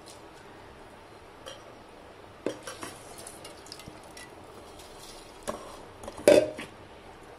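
A few sharp clinks and knocks on a pressure cooker's metal pot as rice is added to the boiling masala water, the loudest about six seconds in, over a faint steady background.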